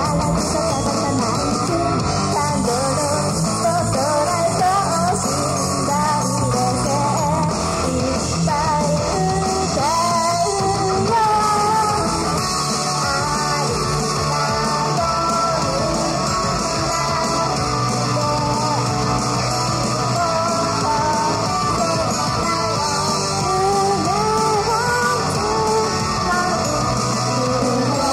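A Japanese girls' idol group sings an upbeat pop-rock song live into handheld microphones over a steady, loud band-style backing with electric guitar.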